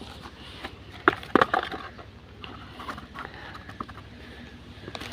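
Packaging being handled and opened: a cluster of sharp crackles and clicks about a second in, then lighter scattered clicks, over a steady low hum.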